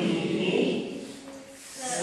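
A group of voices singing together, dying away about a second and a half in.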